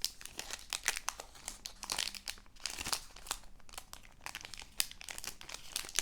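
Plastic trading-card pack wrapper crinkling and tearing as it is worked open by hand, a steady run of irregular crackles; the pack is hard to get open.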